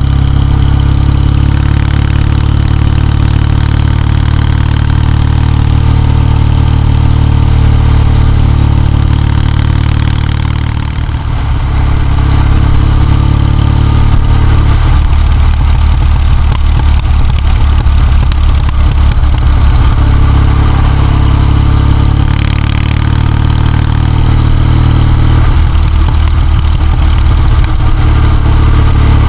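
Kawasaki W650's air-cooled parallel-twin engine running under way with a steady low exhaust note, easing off briefly about eleven seconds in.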